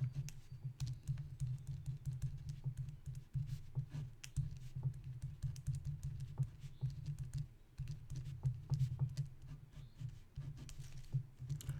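Irregular light taps and clicks, unevenly spaced, over a steady low hum.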